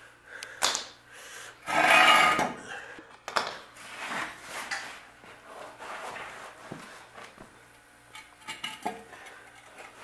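Metal parts being handled: clanks, knocks and scraping as a steel suspension trailing arm is picked up and offered into its mount under the car, with one longer, louder scrape about two seconds in.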